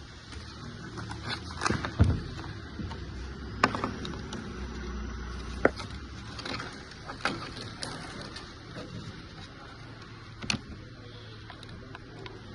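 Scattered sharp clicks and knocks from a battery-powered strapping tool and its strap being handled and set up, over a low background rumble.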